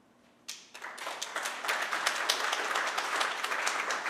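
Audience applauding, starting about half a second in and quickly building to many people clapping at once.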